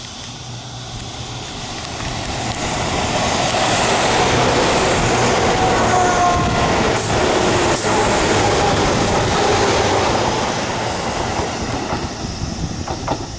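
Tobu 8000 series electric train passing close by: its running noise builds as it approaches, stays loud while the cars go past with a few rail-joint clacks and a whine, then fades as it moves away.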